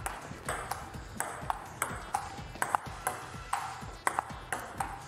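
Table tennis rally: the celluloid ball clicking sharply off the paddles and the table, about three clicks a second, over background music.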